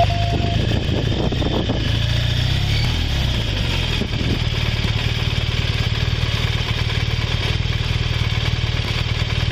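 Police motorcycle engine running steadily at low speed with an even low rumble as the bike creeps along. A steady radio beep tone sounds briefly at the very start.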